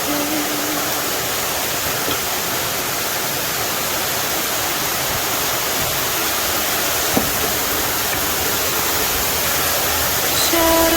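Steady rushing of falling water from a small waterfall.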